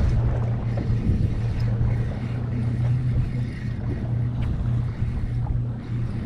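Wind noise on the microphone aboard a fishing boat, over a steady low hum.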